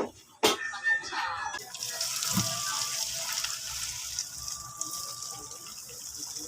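Water running from a tap in a steady hiss that starts about a second and a half in, after two short knocks.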